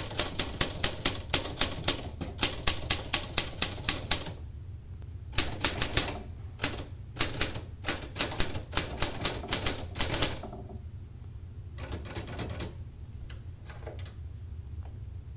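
Smith-Corona Silent manual portable typewriter being typed on: quick runs of key strikes, about four a second, with a pause of about a second partway through. Near the end come a few sparser, fainter clicks.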